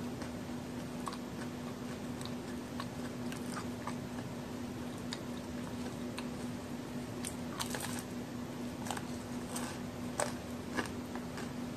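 Close-miked biting and chewing of a homemade chocolate-and-raisin cookie: scattered crisp crunches and clicks, coming more thickly in the second half, over a steady low hum.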